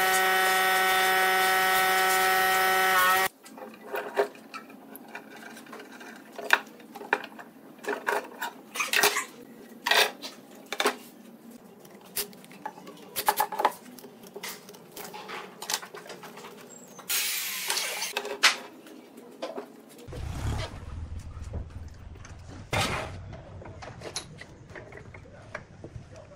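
A loud steady whine with several tones cuts off suddenly about three seconds in. Then come scattered clicks, knocks and metal clinks as bar clamps and steel hose clamps are handled and tightened on a log, with a short whir of a cordless driver about 17 seconds in. A low hum comes in about 20 seconds in under more knocks.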